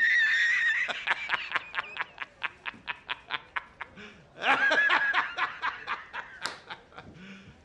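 High-pitched laugh, twice. Each starts with a held squeal and breaks into rapid pulses, about five a second, that fade away. It sits far above a man's speaking voice, like a laugh sound effect dropped in after a joke.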